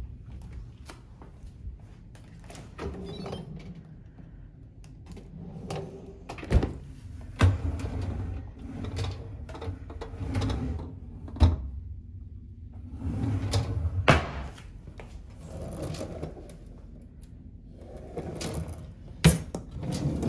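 Kitchen drawers and appliance doors being opened and shut by hand: a run of sharp clicks and knocks, about five of them, with low sliding rumbles in between.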